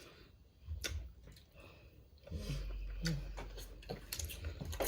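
Someone eating king crab: quiet chewing with a few small clicks and taps. A low steady hum comes in about halfway through.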